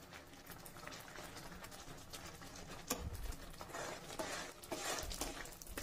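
Faint sounds of a steel spoon stirring just-boiled mung dal in a pan: soft scraping and light clicks, with a low knock about three seconds in.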